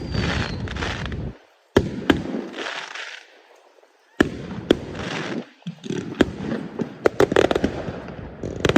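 Fireworks going off: sharp bangs mixed with crackling bursts. There are two short lulls in the first half, then a fast run of bangs in the second half.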